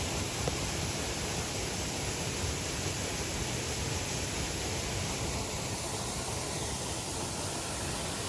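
Waterfall pouring into the lake, a steady even rush of falling water.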